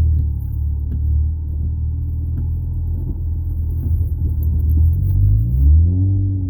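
Audi A4 wagon's tuned 2.0-litre turbocharged engine running at a steady low note, then revving up about five and a half seconds in and holding the higher pitch.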